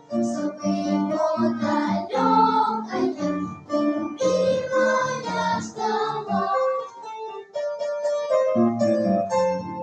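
Children's choir singing with piano accompaniment. About six and a half seconds in the voices drop out and the piano plays on alone for a couple of seconds before the fuller sound returns.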